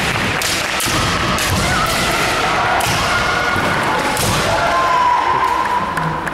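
Kendo bout: sharp cracks of bamboo shinai strikes and stamping feet on a wooden gym floor, several in the first three seconds and another about four seconds in, over the echoing noise of the hall. A long held shout runs through the last second and a half.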